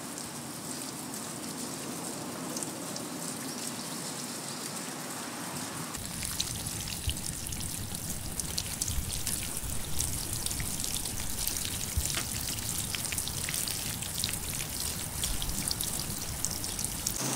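Garden hose spray nozzle watering potted plants: a steady hiss of spray, then from about six seconds in, water pattering densely on leaves and soil with many small drop hits.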